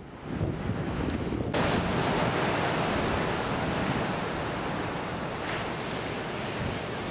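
Ocean surf breaking and washing over a rocky shore, with wind rumbling on the microphone. About a second and a half in, the sound switches abruptly to a steadier, fuller hiss of surf.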